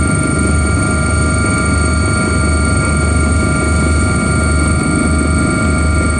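Helicopter in flight heard from inside the cabin: a loud, steady drone of engine and rotor, with several high, steady whining tones over a low, pulsing throb.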